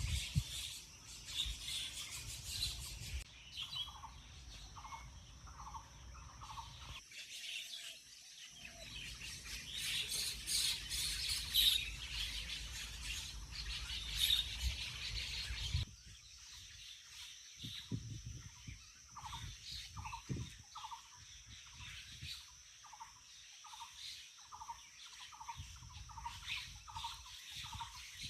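A dawn chorus of several birds chirping and calling in a village, with one bird repeating a short note about twice a second through the second half. A low rumble under the first half stops abruptly about halfway through.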